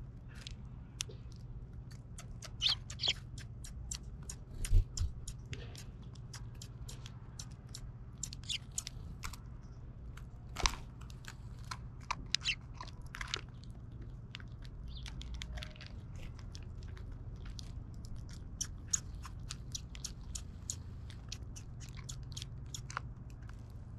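Eurasian tree sparrows pecking and cracking seed in a wooden feeder tray close to the microphone: a quick, irregular patter of sharp clicks and crunches, with a few louder knocks.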